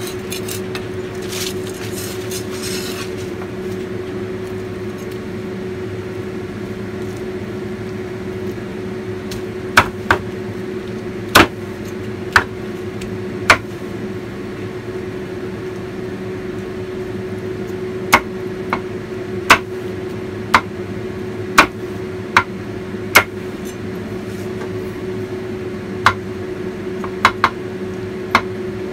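A cleaver chopping roast pork on a chopping board: a knife scraping across the board for the first few seconds, then about fifteen sharp, separate chops in two loose runs from about ten seconds in. A steady electric hum underneath.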